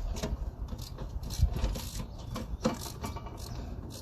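Scattered metal clanks and knocks of tools and car parts being handled during wheel hub and brake work, with a short low rumble about a second and a half in.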